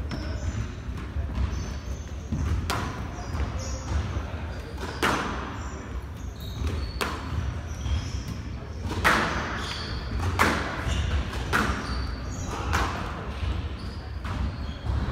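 Squash rally on a glass court: the ball cracks off rackets and walls about once a second, with short squeaks of court shoes on the wooden floor between shots.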